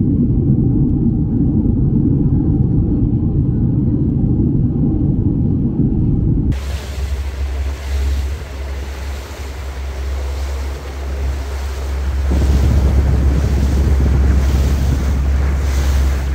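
A dense low rumble that cuts off suddenly about six seconds in. It gives way to wind buffeting the microphone and water rushing, over a steady low engine drone, as from a small aluminium boat under way.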